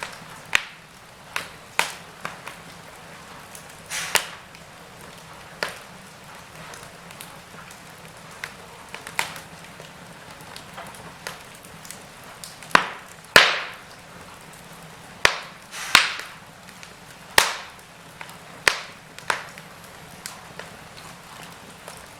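Wood fire burning in a fireplace, crackling and popping irregularly over a low steady hiss, with a few louder snaps.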